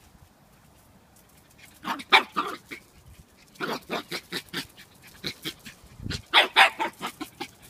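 Havanese puppy barking and yipping in short rapid bursts, starting about two seconds in and loudest near the end.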